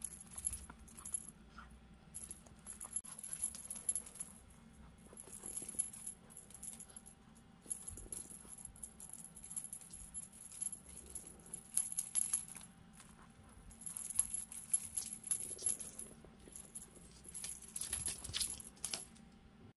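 Small jingle bell on a pompom cat wand toy jingling in repeated short bursts with brief pauses as a kitten bats and chases it.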